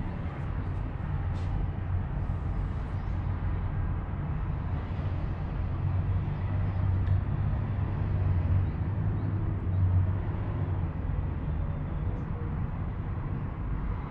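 Steady low rumble inside an Emirates Air Line cable car gondola travelling along its cable, swelling slightly a few times.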